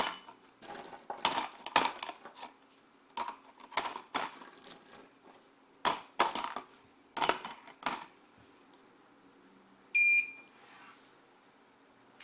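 Metal bolts dropped one at a time into a clear plastic bin on a scale platform, about ten sharp metallic clatters over the first eight seconds. About two seconds later the digital weight indicator gives one short electronic beep as its key is pressed.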